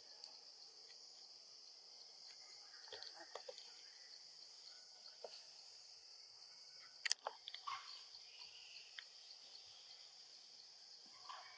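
Steady high-pitched drone of insects, with scattered clicks and rustles. A sharp snap about seven seconds in is the loudest.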